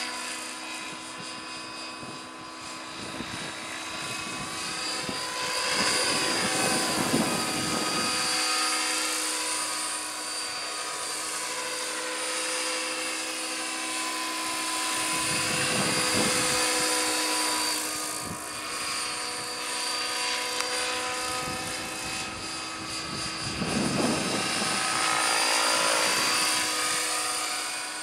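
Radio-controlled Bell LongRanger scale helicopter on a T-Rex 600 mechanic flying, its rotor whine and drive whine steady overall. The pitch bends and the sound swells as it passes close by, three times.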